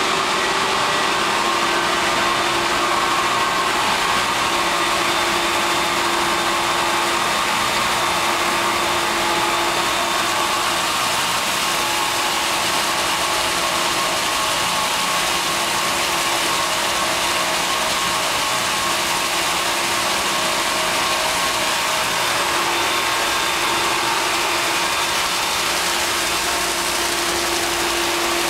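84-inch Blanchard rotary surface grinder with a 150 hp vertical spindle grinding A-36 hot-rolled steel plate: a steady grinding hiss with a faint whine that comes and goes.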